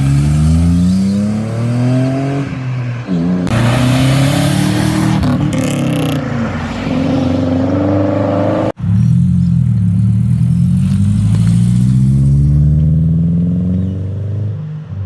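Car engines revving hard as cars accelerate away, the pitch climbing and dropping back at gear changes, with a loud rushing noise over the engine for a couple of seconds around the middle. After an abrupt break, another engine revs up through its gears and fades away near the end.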